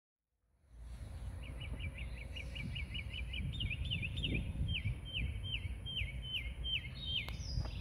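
Wind rumbling on the microphone outdoors, with a bird repeating a short, hooked chirp in a quick run of about five a second that slows to about two or three a second halfway through.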